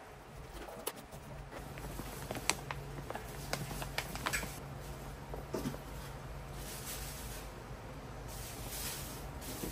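Small kitchen handling noises: a metal ladle clicking against a large pan of simmering sauce, then the plastic bag of shredded cheese crinkling as cheese is sprinkled over. Scattered sharp clicks come through the first half, and a longer rustle comes near the end over a steady low hum.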